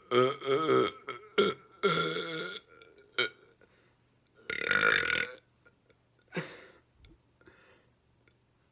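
A man burping repeatedly: three long burps, the first right at the start, another about two seconds in and a third around five seconds in, with short smaller sounds between them and quieter ones near the end.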